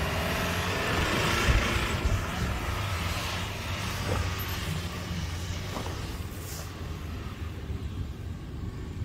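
Jeep Renegade Trailhawk compact SUV driving off up a loose sandy slope, its engine running under load and growing fainter as it moves away, with a thump about one and a half seconds in.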